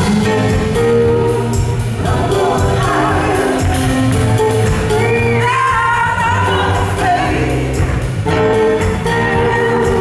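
Live rock band playing a song: electric guitar, organ, bass guitar and drums, with voices singing.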